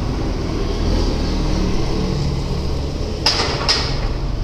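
Steady low rumble of street background noise, with two sharp clicks a little over three seconds in, about half a second apart.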